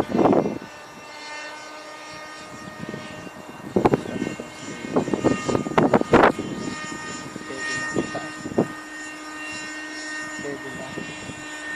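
Thunder Tiger Raptor 30 nitro RC helicopter in flight: the steady whine of its engine and rotor, with several short, louder noises about four, six and eight seconds in.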